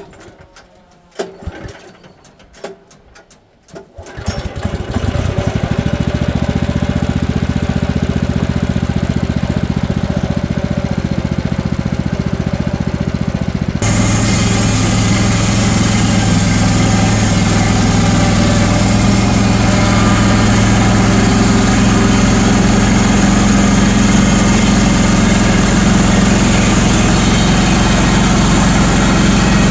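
A few knocks, then a portable sawmill's engine starts about four seconds in and runs steadily. About fourteen seconds in it steps up to a louder, fuller running, as the mill is throttled up for the cut, and holds there.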